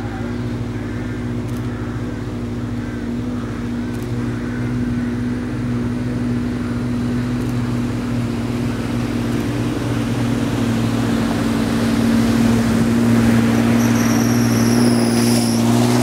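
Suzuki Vitara 4x4 wading through a river ford at a steady low engine speed, its engine hum growing louder as it approaches. Water rushes and splashes around it more and more towards the end. A thin high squeal sounds briefly near the end.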